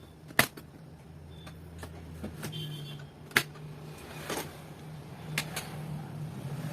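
A few sharp, separate clicks and taps, the loudest about half a second in and another just past three seconds, over a low steady hum.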